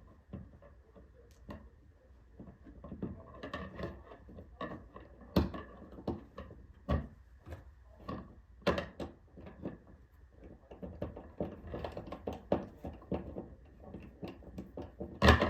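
Irregular plastic clicks, taps and rustling from handling a smoke detector and its mounting bracket while fitting them together, with a louder knock near the end.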